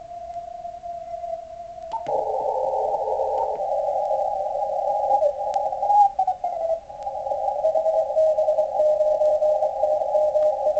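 Icom IC-7600 receiver audio on the 80 m CW band. First a single steady Morse tone comes through the 50 Hz filter. About two seconds in the passband widens and a band of hiss with crowded contest CW signals comes through, with one station's keyed tone audible near the end.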